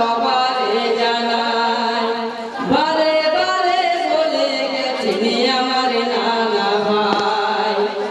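Male voice singing a Bengali marsiya, a Muharram lament, through a microphone and loudspeakers, in long held, wavering notes. A new phrase starts about two and a half seconds in.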